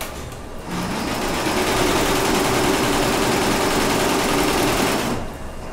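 Dayu multi-head computerized embroidery machine running in single-head mode, with only one head stitching. The loud mechanical noise and a steady hum build up about a second in and die away near the end.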